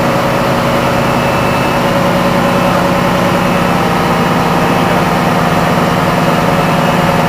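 Heavy diesel power pack of a self-propelled modular transporter idling steadily, a constant low drone with no change in speed.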